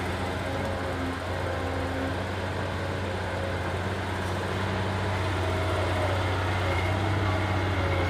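Hydraulic crawler excavator's diesel engine running with a steady low hum while the arm dumps a bucket of soil onto a pile and the machine swings around.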